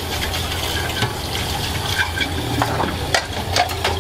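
Water running in a soba-shop kitchen over a steady low hum, with a few sharp clinks in the second half.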